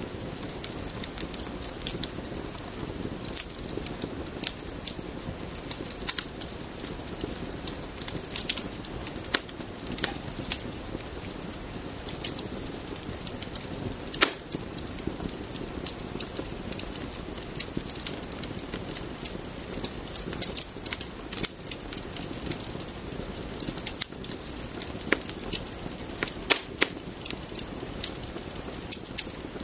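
Campfire crackling: a steady low rush of burning wood with frequent irregular sharp pops and snaps, one louder pop about halfway through.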